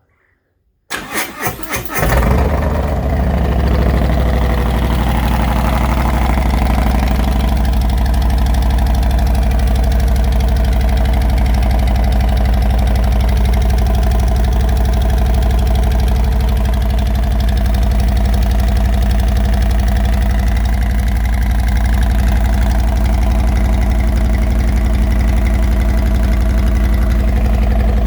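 2019 Harley-Davidson Road Glide's Milwaukee-Eight V-twin cranked by its starter, catching about two seconds in and then idling steadily through slip-on mufflers with homemade packed baffles.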